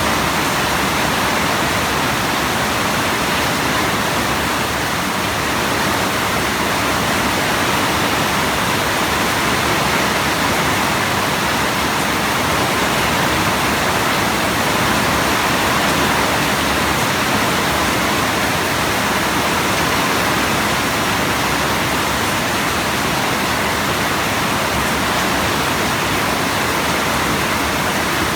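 Rain falling steadily: an even, dense hiss with no single drops or splashes standing out.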